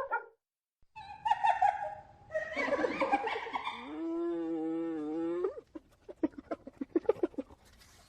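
Hyenas calling: several calls in a row, including a long call that rises and then holds its pitch, followed by a rapid run of short giggle-like notes, about five a second.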